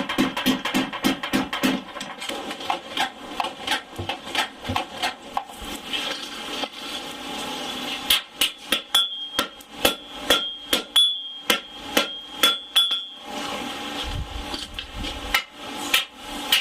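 Forging hammer striking hot steel on an anvil in a long series of blows, folding the knife steel during preliminary forging. A ringing tone comes up between the strikes for a few seconds past the middle.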